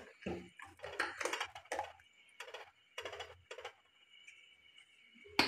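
Steel ladle stirring broth in a steel saucepan, a string of light, irregular scrapes and taps against the pot, followed by one sharp clink near the end.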